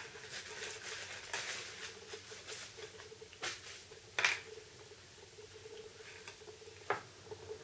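Packaging being handled as a camcorder is lifted out of its box: irregular rustling with a few sharper clicks and taps, the loudest about three and a half, four and seven seconds in.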